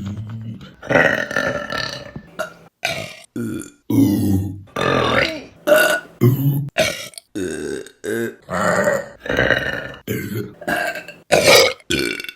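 Women burping, one burp after another in quick succession, each cut off abruptly before the next begins: about a dozen or more separate burps of varying pitch and length.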